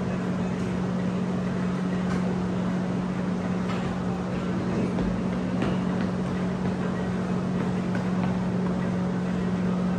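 A steady mechanical drone held at one constant low pitch, like a motor or engine running, with a few faint ticks.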